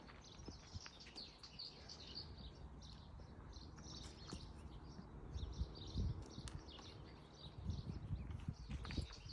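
Small birds chirping steadily, with a few low thuds from a horse, the loudest about six seconds in.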